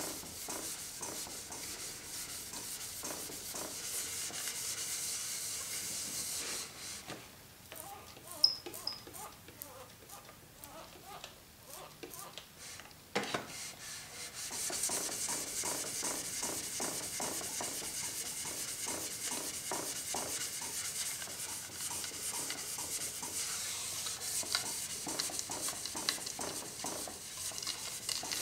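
Jet jointer knives in a sharpening jig being stroked back and forth on wet 20-micron 3M micron-graded abrasive film, a repeated scraping rub. Partway through the strokes stop for a quieter spell that ends in a single knock, then the steady strokes resume.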